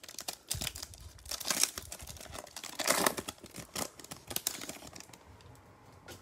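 Plastic foil wrapper of a Bowman Chrome trading-card pack being torn open and crinkled, a dense run of crackling rustles, loudest about one and a half and three seconds in.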